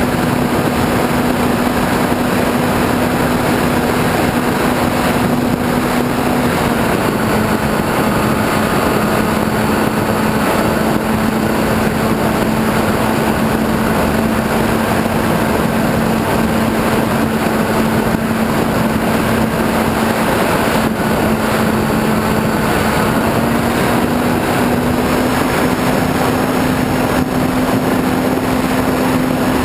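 Onboard sound of an E-flite Apprentice RC airplane in flight: its electric motor and propeller drone at a steady pitch over constant wind rush. The pitch dips slightly about seven seconds in and rises back near the end.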